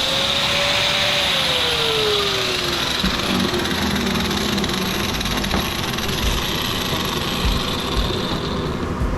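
Handheld power tool cutting into a brass bushing on an electric motor's shaft, a steady hissing grind that stops near the end.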